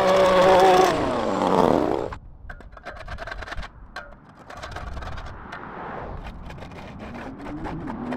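Handheld edger's small engine running, then winding down, its pitch falling, about a second in. Scattered scraping and clicking of a tool on the concrete sidewalk edge follows, and near the end a passing vehicle rises in pitch.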